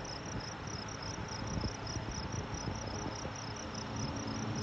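Crickets chirping steadily in the field in a fast pulsing rhythm, about five pulses a second. Underneath is the low drone of the Sonex light aircraft's engine at takeoff power on its takeoff roll, growing louder near the end as it approaches.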